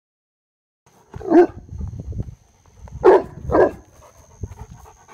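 Dog barking three times: one bark, then two quick barks close together about a second and a half later.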